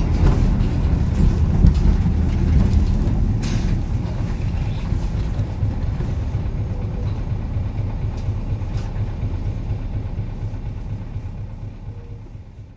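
Isuzu Erga city bus's V8 diesel engine running, heavy and low-pitched, loudest at first and then gradually getting quieter until it fades out at the end. A short hiss of air comes about three and a half seconds in.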